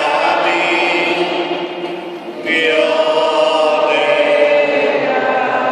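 A group of voices singing a slow liturgical hymn in a large church, with long held notes; the singing dips briefly about two seconds in and a new phrase begins just after.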